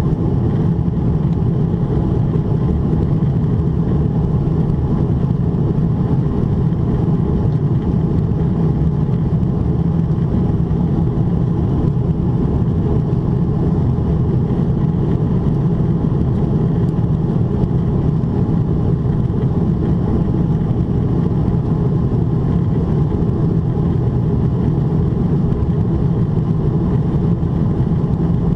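Steady cabin roar inside a Boeing 777-300ER during its climb near 30,000 ft: engine and airflow noise from the GE90-115B turbofans, heard through the fuselage at a window seat. A low, even rumble that does not change.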